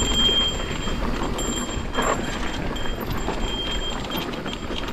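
Mountain bike rolling down a dirt trail: rumbling tyre and wind noise with scattered knocks and rattles, and a thin high tone that comes and goes.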